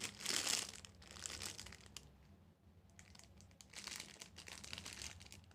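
Packaging crinkling as jewellery pieces are handled and unwrapped, loudest in the first second and again about four seconds in, with small clicks in between.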